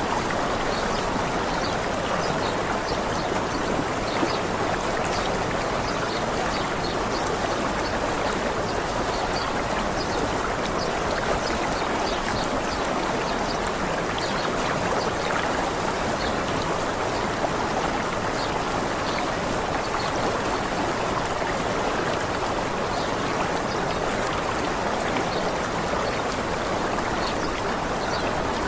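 Waterfall water running steadily: an even, unbroken rush of falling and splashing water.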